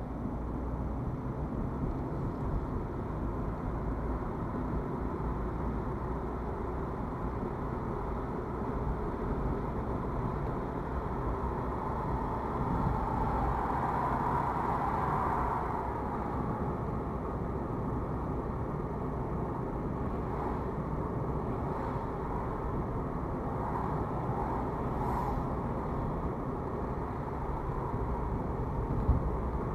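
Steady engine and tyre rumble of a car driving on a city road, heard from inside the cabin through a dashcam microphone, as the car picks up speed. There is a brief swell about halfway through and a short thump near the end.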